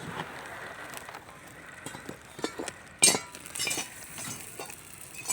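Coal being fed into a brick kiln's firing holes: scattered sharp clinks of hard lumps and metal, with one loud clank about three seconds in followed by a brief rattling rush.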